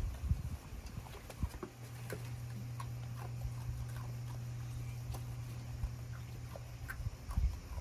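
Goats moving about in their pen, with scattered light hoof taps and knocks and a few low thumps near the start and end. A steady low hum runs through the middle.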